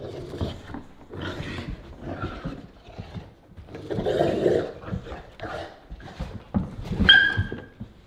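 Two Cane Corsos, an adult and a puppy, growling in a run of rough bursts as they play-fight, with a short high-pitched squeal near the end.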